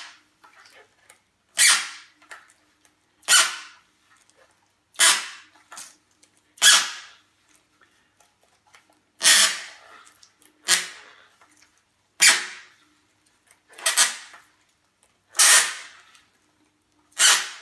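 Surface finishing tape squeaking as it is pulled off the roll and wrapped under slight pressure around a carbon fibre pole repair. There is a short squeak about every one and a half seconds, ten in all.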